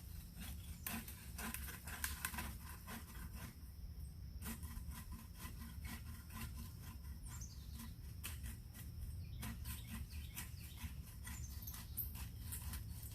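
Dry brush, twigs and leaves crackling and snapping in irregular clicks, over a steady low rumble.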